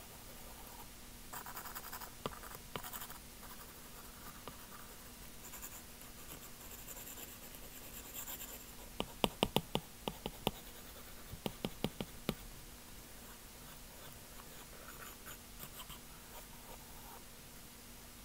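Stylus nib stroking and scratching across an iPad screen during digital painting, with two quick runs of sharp taps of the nib on the glass about halfway through.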